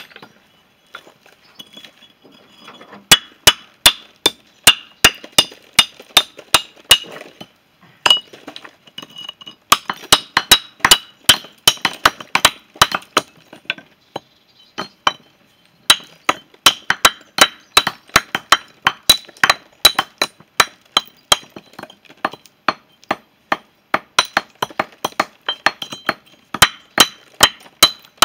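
Stone being shaped by hand with a mason's hammer: sharp ringing strikes of steel on stone, about three a second, in runs broken by short pauses.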